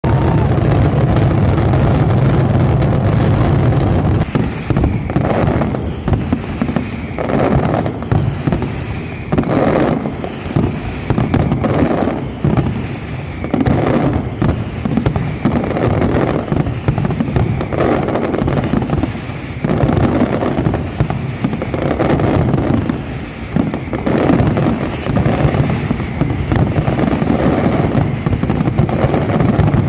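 Aerial fireworks display: a dense, continuous barrage of bangs and explosions going off in rapid succession, with no let-up.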